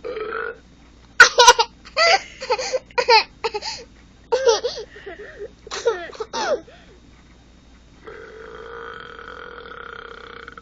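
A short burp, then a baby and an adult laughing in bursts for several seconds. About eight seconds in comes a long, steady drawn-out burp.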